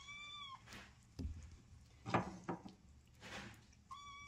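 A cat meows twice, one short call at the start and another near the end, with a couple of light knocks in between.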